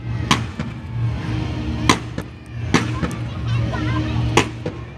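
Fireworks going off in four sharp bangs, roughly a second or so apart, over background music with a steady bass pulse and people talking.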